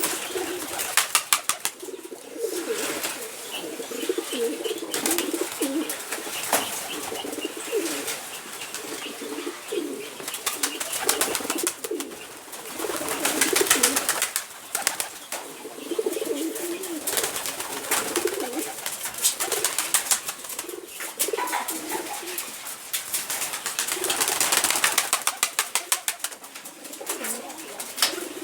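Domestic poultry making low, repeated cooing and murmuring calls, with many quick sharp clicks throughout, some in rapid runs.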